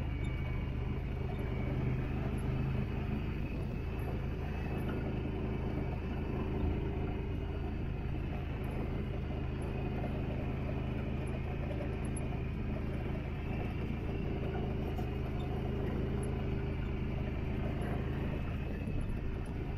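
Off-road vehicle engine running steadily at an even, low speed, its pitch holding constant.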